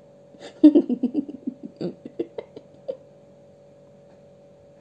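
A woman giggling: a quick run of short laughs that tails off about three seconds in, over a faint steady hum.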